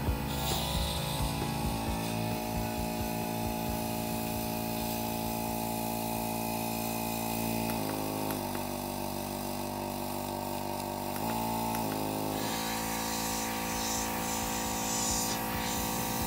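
Small Revell airbrush compressor running with a steady motor hum, its pitch shifting a few times around the middle. Near the end the airbrush sprays in short bursts of hiss.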